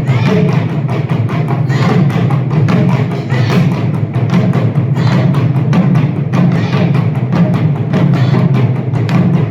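Ensemble of Japanese taiko drums playing a fast, dense rhythm of many strikes without a pause.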